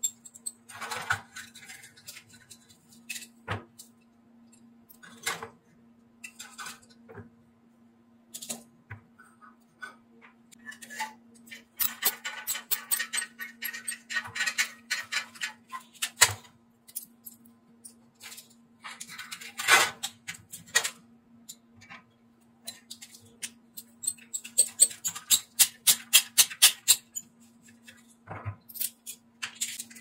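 Screwdriver working screws and metal parts of an oil-fan heater's burner assembly clinking and rattling as it is taken apart: scattered sharp clicks with two longer runs of rapid clicking. A faint steady low hum runs underneath.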